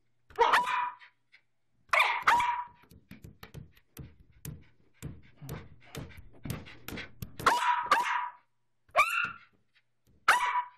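Small dog barking about five times in short bursts at its owner, who holds the ball during a fetch game: excited play barking for the ball. Between the second and third barks comes a run of quick, quieter clicking and tapping.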